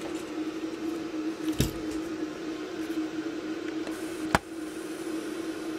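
Two sharp clicks as hands handle the ZX Spectrum circuit board and the phono plug in its RF modulator, the second click louder, over a steady hum.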